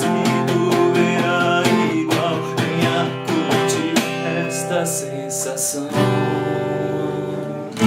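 Acoustic guitar playing alone: a quick run of picked notes, then about six seconds in a strummed chord left to ring, with another chord struck at the end.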